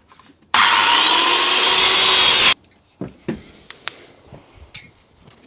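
Skil circular saw cutting through a thin wooden rib strip for about two seconds, starting about half a second in and cutting off abruptly. A few light clicks and knocks follow.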